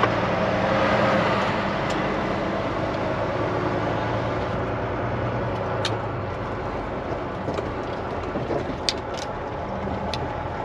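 Volvo semi truck's diesel engine running with road noise, heard inside the cab as the truck rolls slowly over a bumpy, potholed road. A few sharp clicks or rattles come in the second half.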